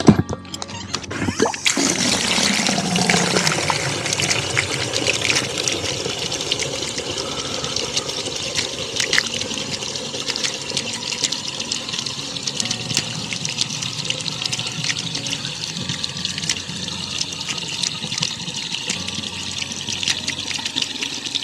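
Water running and splashing steadily into a chicken waterer, starting abruptly about a second and a half in.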